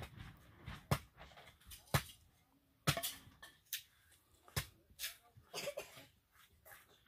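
Hatchet blows splitting firewood into kindling: sharp, separate wooden knocks about once a second, some harder than others.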